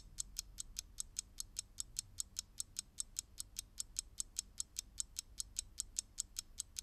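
Clock-ticking sound effect: fast, even ticks, about five a second, counting off the pause given to think of the riddle's answer.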